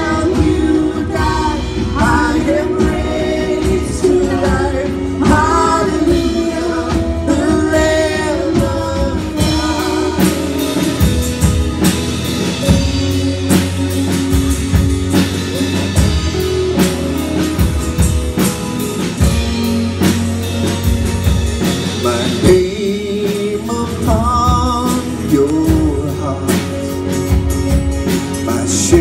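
Live church worship band playing a slow worship song: men and women singing together into microphones over acoustic guitars, electric guitar and a drum kit, amplified through the hall's sound system.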